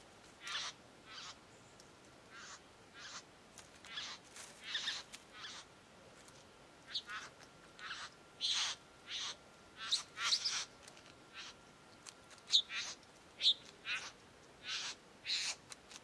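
Male satin bowerbird giving a run of short, buzzy calls, one or two a second at irregular intervals, louder around the middle of the run.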